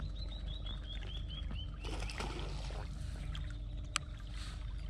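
A bird sings a run of about nine short high notes, each a little lower than the last, over a steady low hum. A single sharp click comes about four seconds in.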